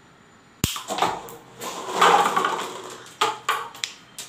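A single sharp snap of a toy BB revolver firing, then a clatter of stacked paper cups tumbling down that swells and fades over about two seconds, followed by a few lighter knocks near the end.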